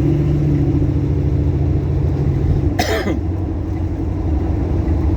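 Car engine running steadily while driving, heard from inside the cabin, its tone changing a little over halfway through; a single short cough breaks in about three seconds in.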